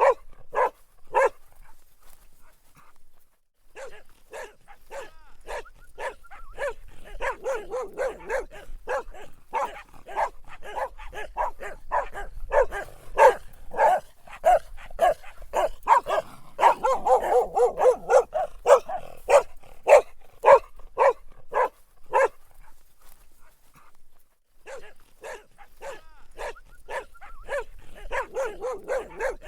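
A dog barking in rapid runs of short barks, with brief pauses about two seconds in and again a little past twenty seconds.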